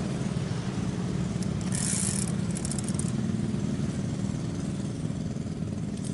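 A small engine running steadily with a low drone. A brief hiss comes about two seconds in, followed by a few light ticks.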